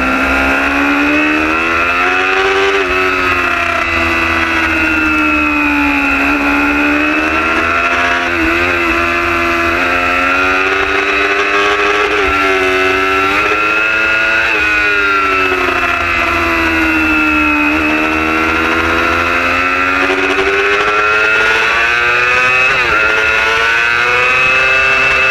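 Superbike racing motorcycle's engine at high revs, heard from onboard, its pitch repeatedly climbing and dropping as the bike accelerates through the gears and slows for corners.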